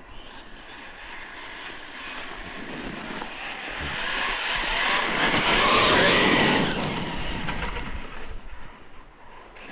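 Losi Tenacity MT 1/10-scale electric RC monster truck making a full-speed pass. Its motor whine and tyre noise build as it approaches, are loudest about six seconds in, then drop away quickly a couple of seconds later.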